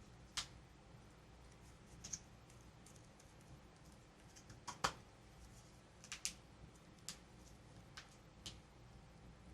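Light clicks and taps of small plastic toy pieces and packaging being handled, about a dozen at irregular intervals, the loudest a little under five seconds in.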